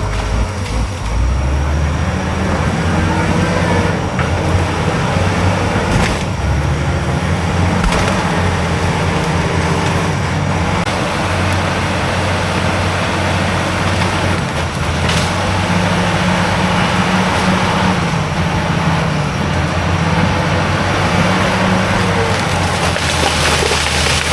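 Diesel engine of a heavy earthmoving machine running steadily under working load, its pitch shifting a little as the load changes, with a few sharp knocks.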